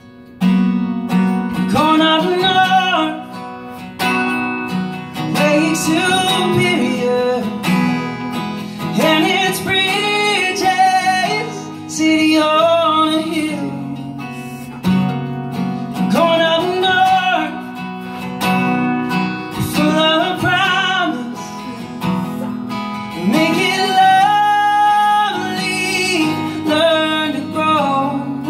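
A man singing, accompanying himself on a strummed acoustic guitar. Sung phrases of about two seconds each, with short breaths between them, over steady strumming.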